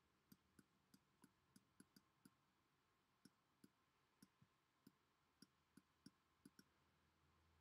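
Very faint, irregular clicks of a stylus tapping on a tablet while handwriting, about two or three a second, with a pause of about a second near the middle.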